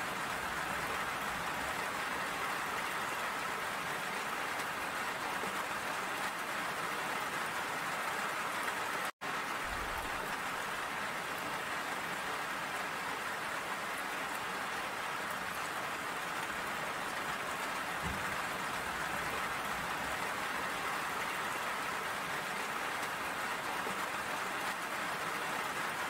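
Steady rain falling, an even hiss of many drops. The sound cuts out for an instant about nine seconds in.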